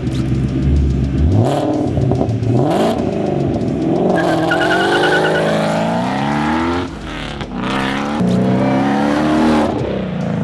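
Shelby GT350's 5.2-litre flat-plane-crank V8 accelerating hard through a Magnaflow stainless-steel catback exhaust. The pitch climbs through each gear and falls at the shifts, most clearly about seven seconds in.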